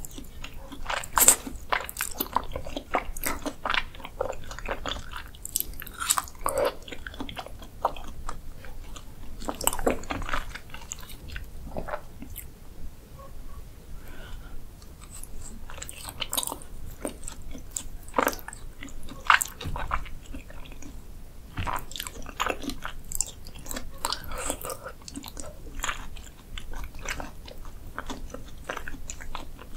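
Close-miked chewing and slurping of raw beef spinal cord: soft, wet mouth sounds with many irregular sharp clicks and smacks.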